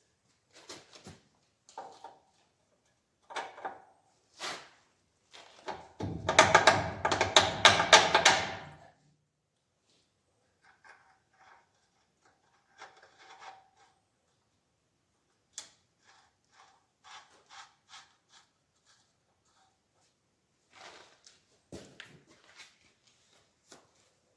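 Metal parts being knocked and clanked during hand-tool work on a spreader's front bearing. About six seconds in there is a loud, rapid run of blows lasting about three seconds, with scattered single knocks before and after.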